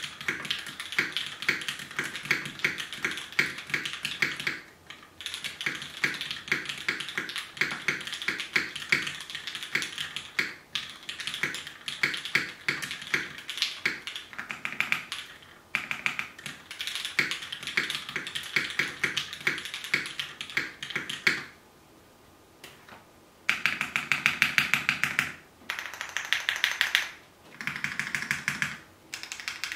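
Two mechanical keyboards typed on at the same time, one hand on each: a fast, dense run of key clacks. The runs break off briefly now and then, with a quiet pause of about two seconds roughly two-thirds of the way through before the typing resumes.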